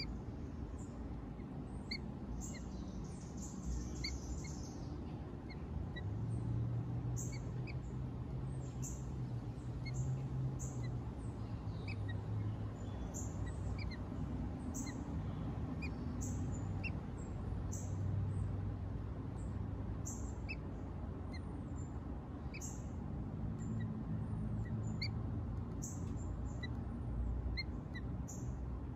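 Backyard songbirds chirping in short, high notes about once a second, over a low hum that swells and fades several times.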